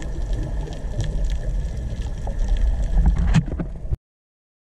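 Underwater sound picked up by a submerged camera: a muffled low rumble of water moving around the housing, with scattered clicks that grow busier near the end. It cuts off abruptly about four seconds in.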